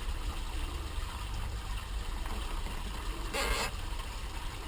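A cable tie being pulled tight, heard as a short burst about three and a half seconds in, over a steady low rumble.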